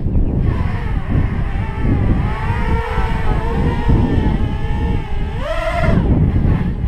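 Blackout Mini H quadcopter's four 1806 brushless motors and 5-inch props whining in flight, the pitch wavering up and down as the throttle changes, with a sharp rising surge about five and a half seconds in.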